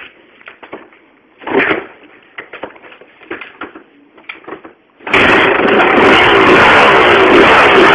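Scattered clicks and knocks, with one louder thump about one and a half seconds in. About five seconds in, an engine starts abruptly and runs loud and close to the microphone, its pitch shifting slightly as it revs.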